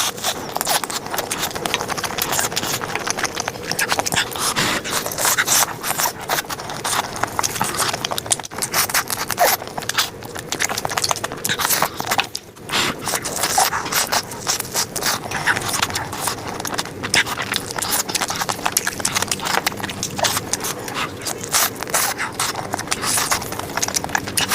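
Close-up eating sounds of someone chewing juicy chicken: a fast, irregular run of wet clicks, squelches and lip smacks, with a short pause about twelve seconds in.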